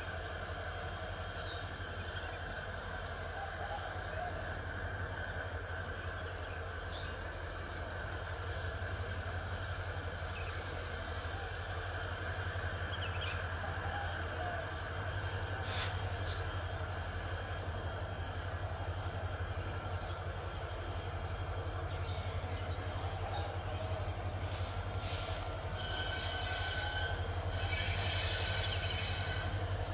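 A pair of CC 205 diesel-electric locomotives heading a long coal train, heard from a distance running slowly as they approach, with a steady low pulsing engine drone. Insects chirp steadily throughout, and a few short high squeals come near the end.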